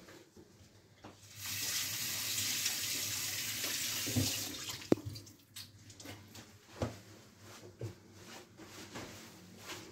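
Kitchen tap running as hands are washed under it, starting about a second in, running steadily for about three seconds, then tapering off. A few light knocks follow.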